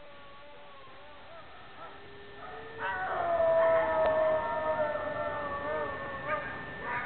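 Dogs howling. A faint howl is heard first, then about three seconds in louder, drawn-out howls from several dogs join in together.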